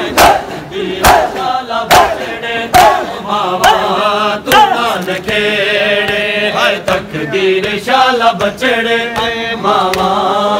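Men chanting a noha, the Shia lament for Muharram, in a sung recitation, with rhythmic open-handed slaps on bare chests (matam) about once a second that grow fainter after the middle.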